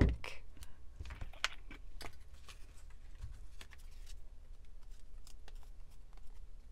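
Torn strips of old book paper being handled and crinkled, a scattered series of short paper crackles and light taps.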